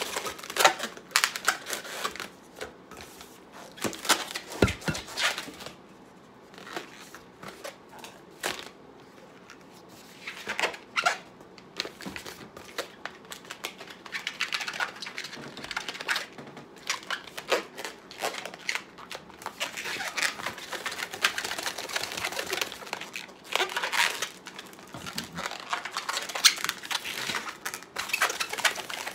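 Long latex modelling balloon squeaking and rubbing in irregular bursts as it is twisted and bent by hand.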